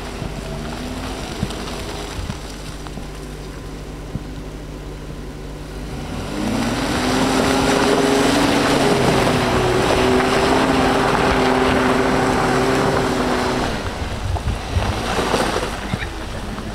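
Jeep Wrangler Unlimited's engine running at low revs in thick mud, then about six seconds in it revs up hard and holds high revs for about seven seconds with the tyres spinning and slinging mud through a donut, before easing off near the end.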